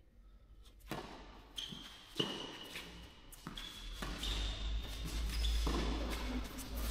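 Tennis ball struck by rackets in a rally: a serve about a second in, then sharp hits about 2 s in and again around 3.5 to 4 s, each followed by the echo of a large indoor hall.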